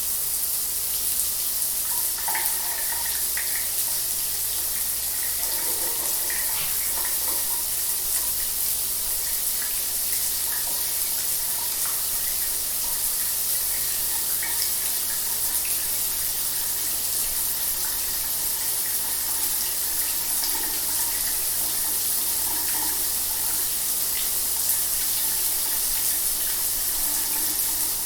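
Shower running steadily, a continuous hiss of falling water with small scattered splashes.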